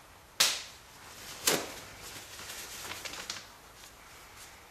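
Handling rustle of paper towel and plastic sheeting as brake fluid is sopped out of a motorcycle brake reservoir. There are two sharp swishes about a second apart, then softer crinkling with a few small ticks.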